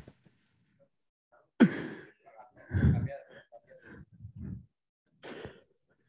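A faint, indistinct human voice: a breathy sigh about one and a half seconds in, then a few short, murmured sounds.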